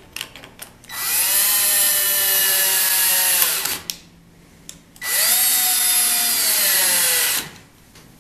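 Power drill/driver driving two drywall screws, one after the other, through a plywood jig into a wooden block. Each run spins up, holds a steady whine for about two and a half seconds, and winds down as the screw seats.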